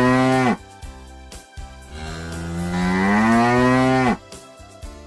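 Cow mooing twice. A long moo ends about half a second in, then a second long moo rises slowly in pitch and drops away sharply at its end.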